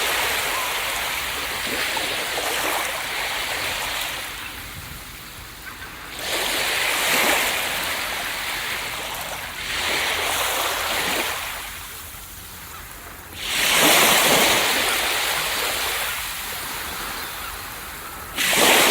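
Ocean waves breaking on a beach: a steady rush of surf that swells every few seconds as each wave crashes, then fades as it washes back. The biggest break comes about two-thirds of the way through.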